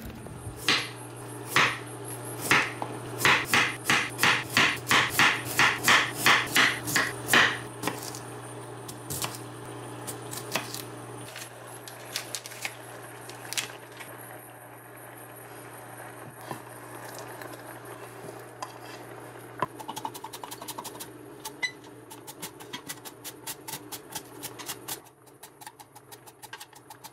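Food preparation: a knife chopping on a cutting board in regular knocks, about two to three a second, for the first several seconds, then scattered knocks of utensils. Near the end come quick strokes of a vegetable sliding over a mandoline slicer. A steady low hum runs underneath for most of it.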